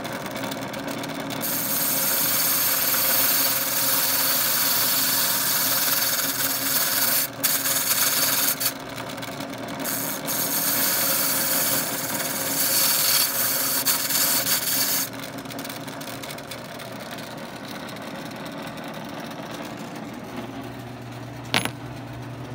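Key duplicating machine running, its spinning deburr brush scrubbing the burrs off a freshly cut key: a loud scratchy hiss in several passes that break off briefly a few times, from about a second and a half in until about fifteen seconds. After that only the machine's motor runs, with one sharp click near the end.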